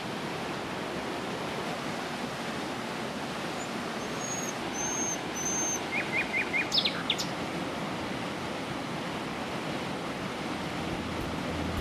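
Steady rushing of a river, with a bird giving three short high chirps about halfway through and a few more calls soon after.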